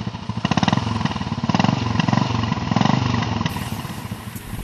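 Royal Enfield Bullet single-cylinder engine running with a quick, even beat and revved three times. Near the end the engine eases off as music comes in.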